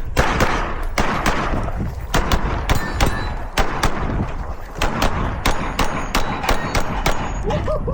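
A rapid string of gunshots, about two a second at uneven spacing, from a firearm fitted with an Unrivaled Technologies UB muzzle device.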